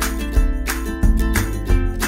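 Background music: a strummed guitar over a steady beat with strong bass.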